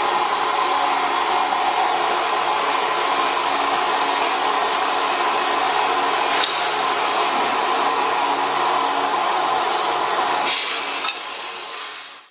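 Cold saw cutting, a steady machine noise of the running saw and its blade in the work. The level falls away over the last two seconds.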